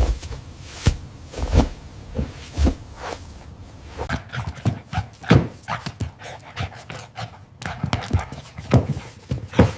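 A dog at play: a string of irregular short thumps and knocks, sparse at first and much busier from about four seconds in.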